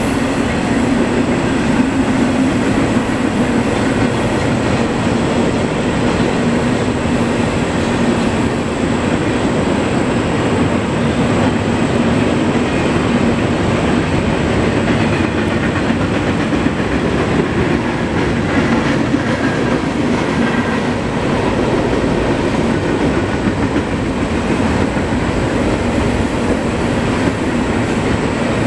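CSX double-stack container train rolling past at steady speed: a continuous, even running noise of the cars and their wheels on the rails, with no horn.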